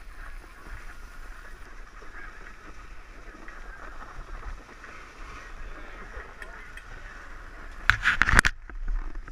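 Steady scraping hiss of snow under a rider sliding down a groomed slope. About eight seconds in comes a loud, brief scuffing burst.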